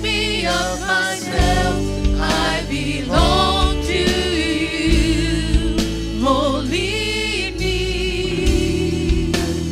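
Contemporary Christian praise band performing live: several voices singing sustained, vibrato-laden melody lines over steady, sustained band accompaniment.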